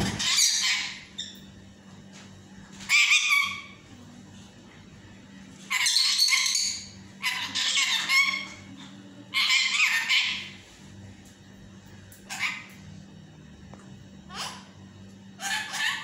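Lutino Indian ringneck parakeet chattering and calling in short high-pitched bursts, about eight of them separated by pauses, the longest in the middle and brief ones near the end.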